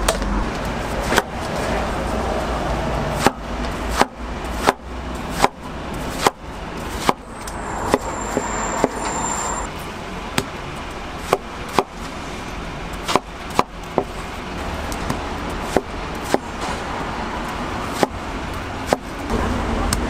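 Long kitchen knife chopping peeled watermelon into cubes on a wooden cutting board: a run of sharp knocks as the blade strikes the board, a little more than one a second and unevenly spaced, over steady background noise.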